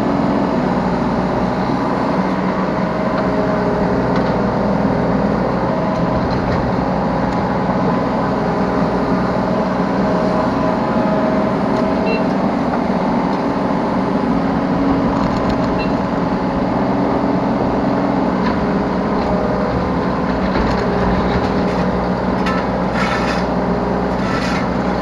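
Yanmar B3 Sigma 3-ton mini excavator's diesel engine running steadily under load with its hydraulics working, heard from the operator's seat. A few short knocks come near the end.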